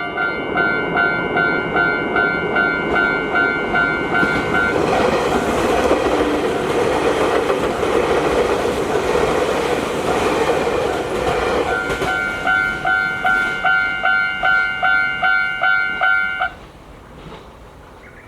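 Japanese level-crossing warning bell ringing at about two strikes a second while an Izukyu electric train passes through, its running noise drowning out the bell for several seconds. The bell rings on after the train has gone and cuts off suddenly near the end.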